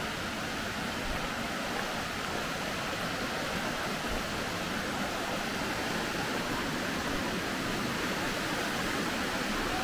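Steady, even rush of cascading water from Bash Bish Falls and its stream, with no breaks or separate events.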